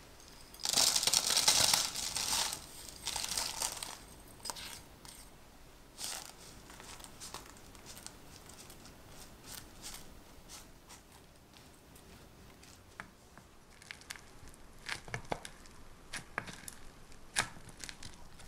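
Parchment paper crinkling loudly for about three seconds near the start, followed by softer scraping and light ticks as graham cracker crumbs are spread with a silicone spatula and pressed down with a small glass in a paper-lined cake ring.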